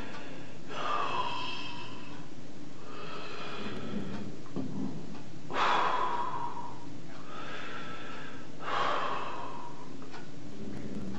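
A distraught man breathing heavily and sniffling, with four loud shaky breaths a few seconds apart, the third the loudest.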